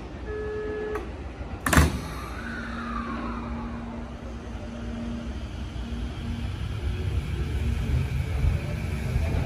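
Tokyo Metro 15000-series electric train at a station platform: a short steady beep near the start, a sharp thud about two seconds in, then a steady electric hum from the train's traction equipment as it pulls away.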